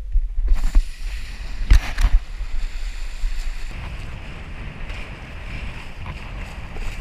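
Wind buffeting a body-mounted action camera's microphone while kitesurfing, over the rush and spray of the board cutting through choppy water. A couple of sharp knocks come about two seconds in, and the water hiss settles into a steady rush in the second half.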